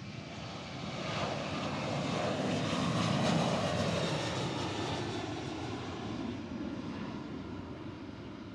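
Jet engines of an arriving Southwest Airlines Boeing 737 passing by. The noise swells to a peak about three seconds in and then fades, its pitch falling as the jet goes past.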